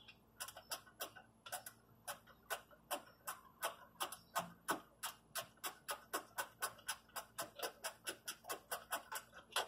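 Ratchet wrench clicking in an even run of about three to four clicks a second as it backs off a battery terminal nut.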